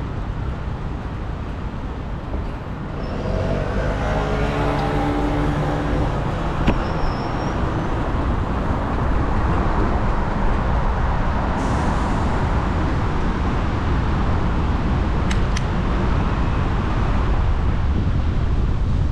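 City street traffic heard from a moving bicycle, under a steady low rumble. Between about three and six seconds in, a passing motor vehicle's engine hum rises and falls. A few short sharp clicks come later.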